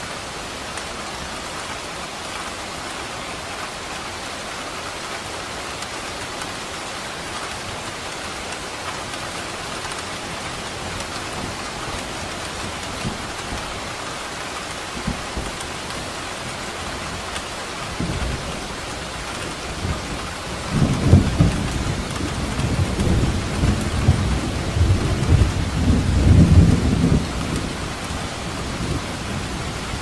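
Steady rain hissing throughout. A little past halfway a low roll of thunder begins, swells into its loudest rumbling, and dies away shortly before the end.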